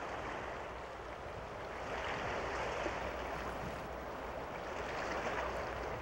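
Steady rushing noise of sea surf, swelling slightly about two seconds in.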